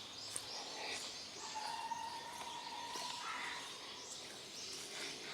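Wild songbirds calling, with scattered short chirps. About a second and a half in, a long steady whistled tone is held for about two seconds.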